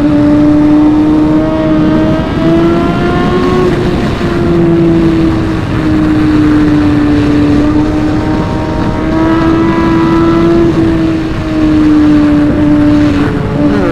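Superbike inline-four engine held at high revs while riding, its pitch drifting gently up and down with the throttle, over steady wind rumble on the helmet microphone.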